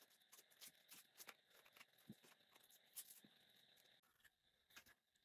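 Faint, irregular crunching and clicking as someone eats ice cream: a quick run of small crackles.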